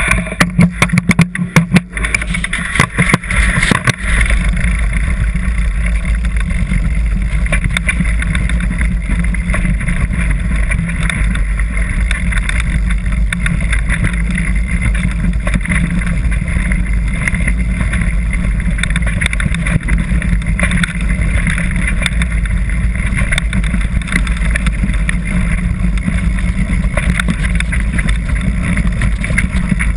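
Wind buffeting and trail rumble on a camera mounted on a mountain bike riding fast down a dirt singletrack: a steady, loud rush, heavy in the bass, from about four seconds in. Before that, a run of sharp clicks and knocks as the bike sets off.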